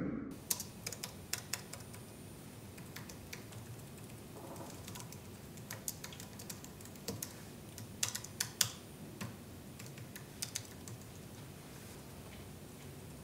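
Typing on a computer keyboard: irregular keystroke clicks, some single and some in quick runs, over a faint steady room hiss.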